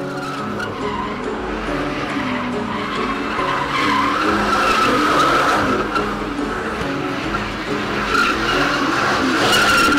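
Car doing a smoky burnout, tires screeching over a revving engine, loudest in the middle and again near the end.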